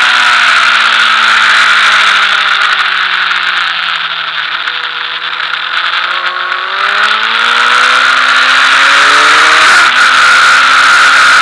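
Sport motorcycle engine heard from the rider's seat under heavy wind rush. The engine note falls as the bike slows into a corner, is quietest around the middle, then climbs steadily as it accelerates out onto the straight. There is a short click near the end.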